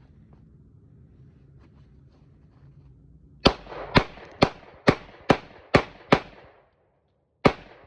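Semi-automatic pistol fired in a quick string of seven shots, about two and a half a second, then one more shot after a pause of over a second.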